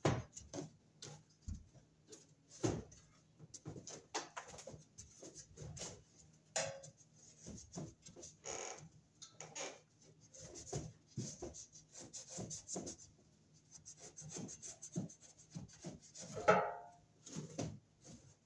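A blade cutting and scraping through a drop ceiling tile in short, irregular strokes. There is one louder scrape near the end.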